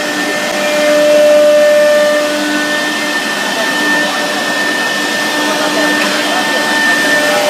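CNC router's HSD 6 kW air-cooled spindle running steadily while milling a wave pattern into a board: a steady whine of several tones over a continuous rushing noise, slightly louder about a second in.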